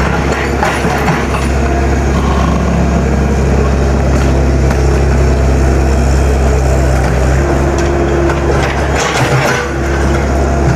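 Heavy excavator's diesel engine running steadily under load while uprooting a large tree root, with a strong low hum; the engine eases briefly about nine seconds in.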